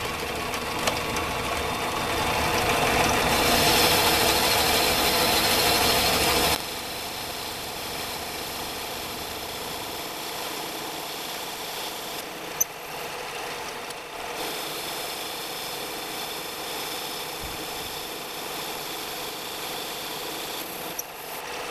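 Small metal lathe running, its cutting tool turning down an aluminum workpiece spinning in the chuck: a steady motor and gear whine with the hiss of the cut. It is louder between about two and six seconds in, then drops to a lower, steadier run.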